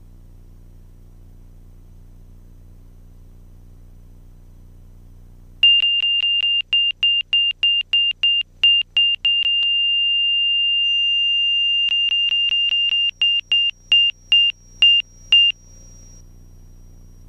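A single high-pitched cockpit warning tone sounds over the low hum of the engine as the Lancair 360 lifts off. It beeps about three times a second, holds steady for about two seconds, then beeps again before stopping.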